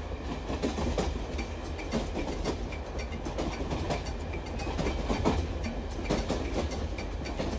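Train carriage in motion: a steady low rumble with wheels clicking and knocking over the rail joints.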